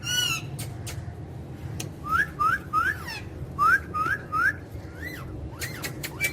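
Pet parrot whistling: a short call at the start, then two quick runs of three short rising whistles, with scattered sharp clicks.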